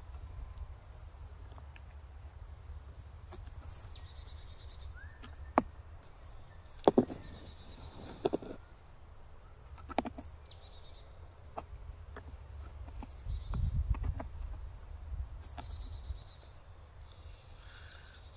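Small birds chirping and trilling in repeated short phrases over a steady low rumble, with a few sharp clicks and knocks from a hand-turned auger bit and ratchet boring into a dead wooden stump.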